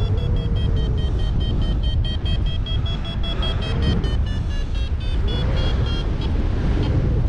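Paragliding variometer beeping quickly, about five short high beeps a second, their pitch stepping down and back up, over heavy wind rumble on the microphone. The beeping means the glider is climbing, and it drops out briefly near the end.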